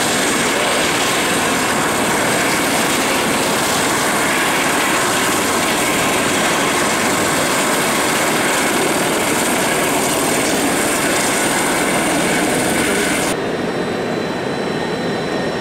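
Jet aircraft engines running steadily: a loud, even rush with a thin high whine. About 13 seconds in the sound turns duller and a little quieter.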